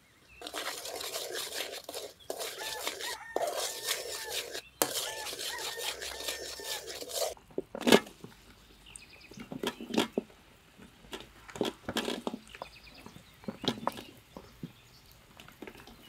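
Sauce sizzling and bubbling hard in a metal wok for about seven seconds, cutting off suddenly. Then a loud knock, followed by a metal ladle clanking and scraping against the wok as chicken feet are stirred in.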